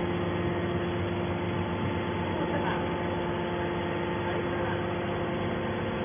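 Hydraulic scrap-metal baler's motor and pump running: a steady hum with several held tones.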